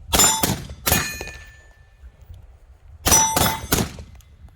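Two strings of three quick pistol shots, about three seconds apart, each shot followed by a brief metallic ring.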